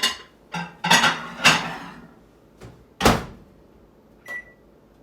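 Microwave oven being loaded: a few knocks and scrapes as a glass-lidded bowl goes in, the door shut with a sharp thud about three seconds in, then a single keypad beep near the end.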